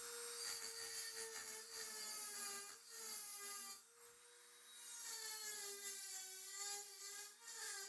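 Small high-speed power tool whirring as it cuts into the aluminum frame to remove the rest of a broken tab, throwing off aluminum shavings. Its pitch wavers under load, and it eases off briefly about four seconds in before cutting again.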